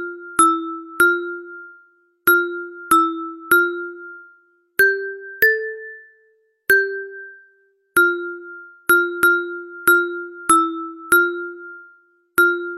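Ringtone melody of short mallet-struck notes, each starting sharply and ringing away. The notes repeat in phrases, mostly on one low pitch, with a few higher notes about midway.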